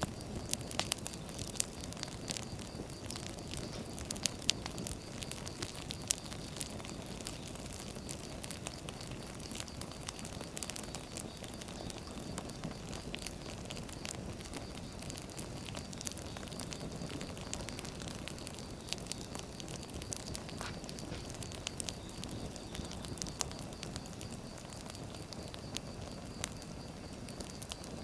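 Firewood burning, crackling with scattered sharp pops over a low steady rush of flame; the pops come thickest in the first few seconds.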